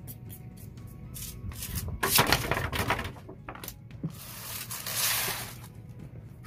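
Aluminium cam holder from a Honda RS150 DOHC cylinder head being rubbed by hand on sandpaper laid on tile: a run of loud scratchy strokes about two seconds in, a few light knocks, then a longer gritty sweep near the end. The holder is being lapped to take out excess camshaft clearance that makes the head noisy.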